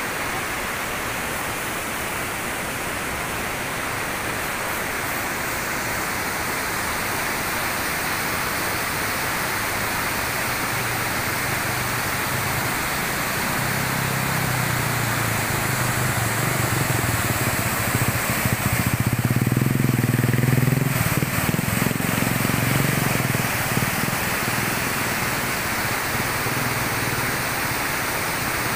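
Waterfall rushing steadily. About halfway through, a motor engine grows louder, is loudest about two-thirds of the way in, then fades again under the water noise.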